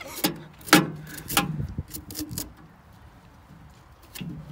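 Small knife cutting into a raw beet: a few sharp crunching knocks in the first second and a half, then quieter, with faint knocks near the end.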